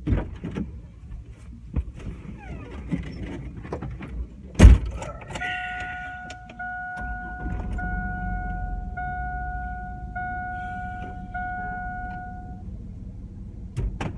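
Inside a Chevrolet Blazer's cabin: small clicks and rustling, then a driver's door thumping shut, followed by a dashboard warning chime sounding six times, about once a second, over a low engine rumble.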